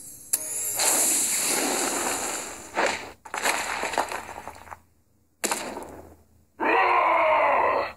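Cartoon sound effects of a brick wall being smashed and crumbling: several loud crashing bursts with short gaps, the loudest near the end.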